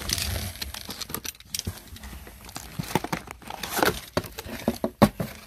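Plastic toy packaging crinkling irregularly as it is handled and unwrapped, with a few sharper crackles near the end.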